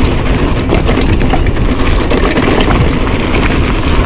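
Wind buffeting an action camera's microphone while a mountain bike rolls fast down a rocky dirt trail: a loud, steady low rumble with scattered clicks and knocks from the tyres and bike rattling over stones.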